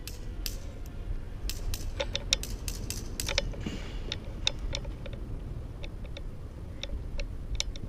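Scattered sharp clicks and snaps from an airsoft skirmish, crowded together for a second or two from about two seconds in, then sparser and irregular, over a steady low rumble.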